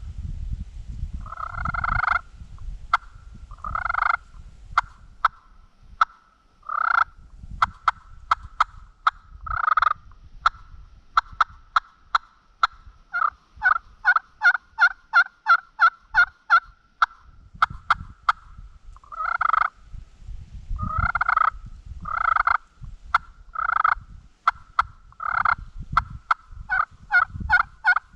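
Hand-operated turkey call imitating a hen: drawn-out yelps mixed with quick runs of short, sharp cutts and clucks, about four notes a second, with a low rumble beneath.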